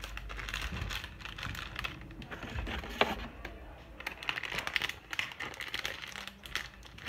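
Quick, irregular light clicking and tapping, with one sharper click about three seconds in.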